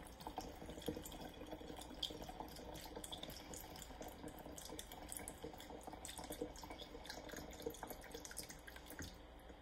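Vodka trickling from a plastic bottle through a metal funnel into a glass swing-top bottle, a faint steady pattering pour that stops near the end.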